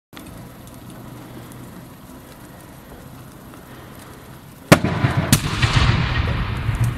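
Car burning fully ablaze: the fire roars and crackles steadily, then two loud bangs from the burning car, nearly five seconds in and just over half a second apart, the first the loudest. Louder crackling and hissing follow as sparks shower up from the flames.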